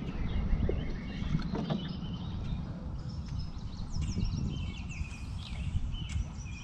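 Birds singing: many short, falling notes, busier from about halfway through, over a low, steady rumble.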